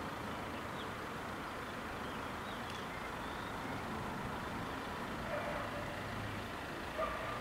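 Steady, even background noise of a town street, with no distinct rhythm, and a short louder sound near the end.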